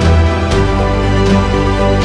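Background music with sustained chords over a bass line and a soft, steady beat.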